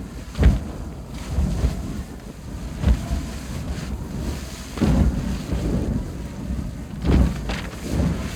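Signal flare burning with a steady rushing hiss, while wind buffets the microphone in gusts every couple of seconds.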